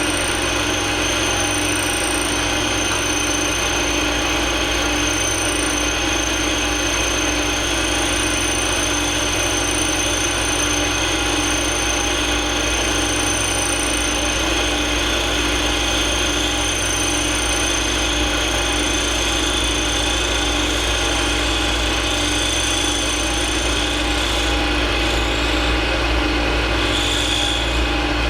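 Milling machine running steadily, its cutter taking a gentle cut in brass, with a steady motor hum and a high whine. The highest whine drops out a few seconds before the end.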